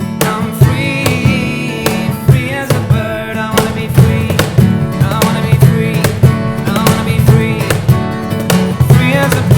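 Live acoustic band music: acoustic guitar strumming over a steady cajon beat, with a voice singing the melody.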